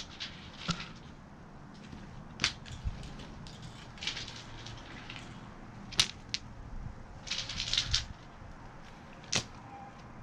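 Smooth beach pebbles being set down by hand on weed-barrier fabric: three sharp clicks of stones knocking together, with short rustles of the fabric between them.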